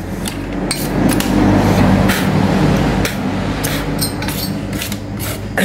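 Clicks and knocks from a CRT TV main board and its cables being handled. Underneath is a low droning hum with a rushing noise that swells in the middle and eases off toward the end.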